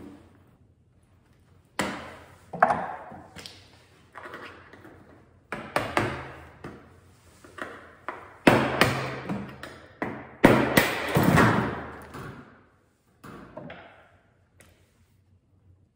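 Stainless-steel sheet-metal outer shell of a wax melter being worked loose by hand: a run of metallic knocks, taps and rattles with a short ringing after them. They are loudest and most frequent in the middle and thin out near the end.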